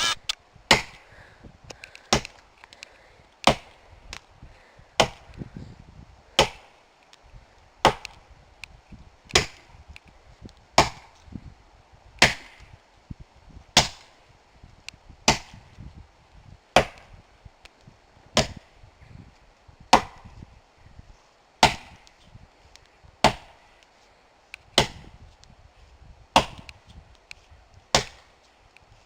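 Axe chopping into a standing tree trunk to make the back cut for felling: about twenty evenly paced strokes, one every second and a half, each a sharp impact of steel into wood.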